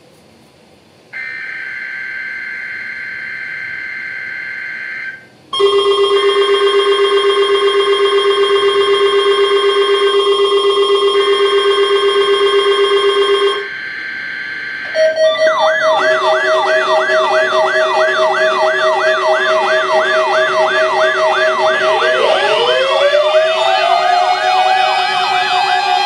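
NOAA Weather Radio Required Weekly Test alerting: a steady two-tone data burst of the digital alert header, then weather-radio alert alarms going off, first a loud steady multi-tone beep, then warbling siren-like tones with one tone rising like a wailing siren near the end.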